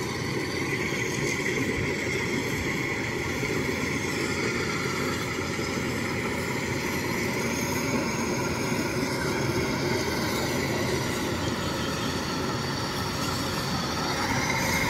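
Rice combine harvesters, the nearest a Kubota, running steadily while cutting and threshing rice, a dense mechanical drone of engines and working machinery that grows a little louder near the end as one draws closer.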